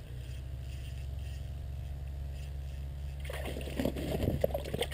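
A small crappie being reeled up and brought out through an ice-fishing hole. A steady low rumble lies underneath, and about three seconds in there are a second and a half of irregular clattering handling noises.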